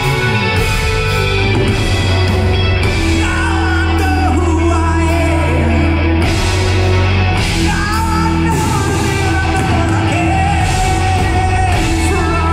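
Live progressive rock band playing with violin, electric guitars, keyboards and drums over sustained bass notes, a lead voice singing a wavering melody through much of it.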